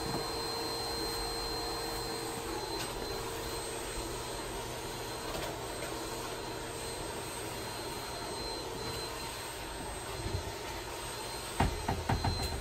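Vacuum cleaner running steadily with a whining motor, with a few knocks near the end.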